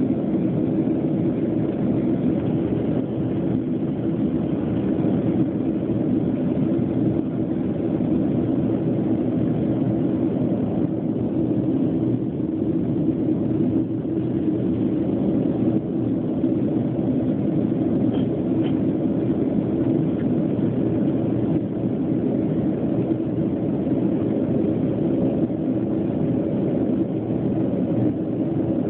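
Steady jet engine and airflow noise heard inside the cabin of a Boeing 737 in flight: an even, unbroken low drone with a steady hum in it.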